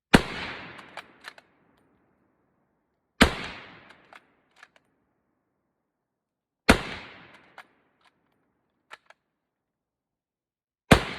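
Carcano Model 1891 bolt-action rifle in 6.5 Carcano firing four shots, about three to four seconds apart, each a sharp crack with a ringing tail. Between shots come short clicks of the bolt being worked.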